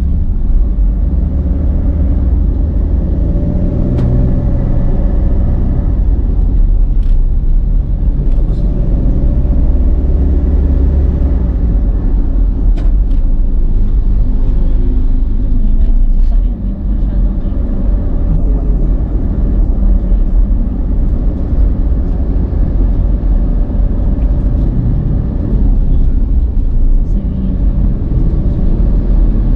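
A car driving, heard from the dash camera: a steady low rumble of engine and road noise, its engine note shifting in pitch now and then.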